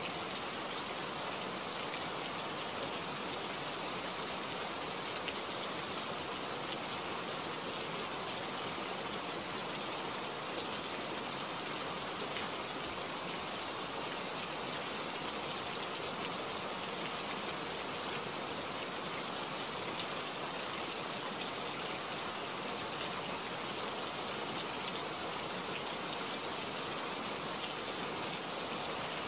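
Steady rain falling: an even hiss of many drops with fine, sharper drop ticks scattered through it, with no thunder.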